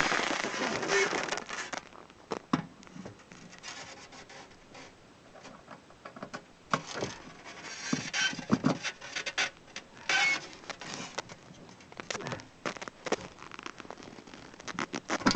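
Hands and tools rubbing and scraping on a Buran snowmobile, with scattered clicks and knocks, as frozen-on snow and ice is cleared off.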